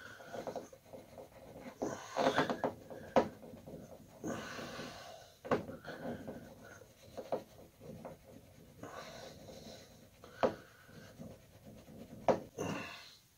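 Fingertips rubbing and picking old weatherstrip adhesive off the painted steel edge of a 1978 Pontiac Trans Am door after it was soaked with WD-40, with scattered sharp clicks, plus heavy breathing close by.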